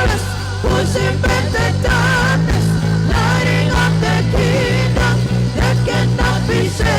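Church worship music: drums beating steadily under held bass notes, with a melody line wavering in vibrato above.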